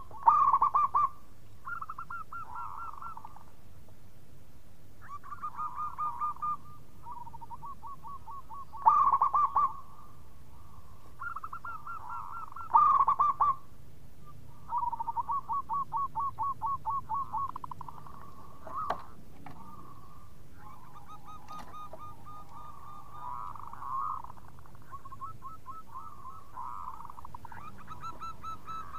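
Zebra dove cooing: repeated phrases of fast staccato coos, each a second or two long, with the loudest bursts near the start, about nine seconds in and about thirteen seconds in.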